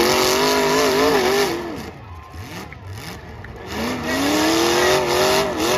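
Derby car engine revving hard twice. It starts high and falls away a little under two seconds in, then climbs in pitch again about a second later, holds and drops off near the end.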